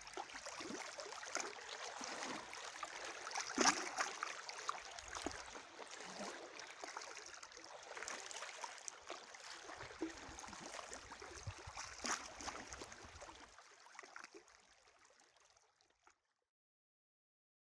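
Faint sea water lapping and gurgling, with small irregular splashes, fading out near the end.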